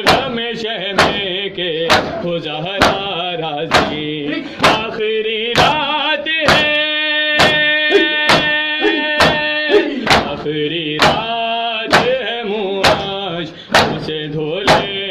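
Voices chanting an Urdu nauha (lament), unaccompanied, with a long held note in the middle, over rhythmic chest-beating (matam): sharp hand strikes on the chest about once a second.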